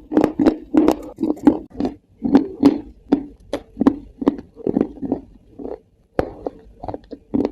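A person chewing something dry and crunchy: a steady run of sharp crunches, about three to four a second, with a brief pause about six seconds in.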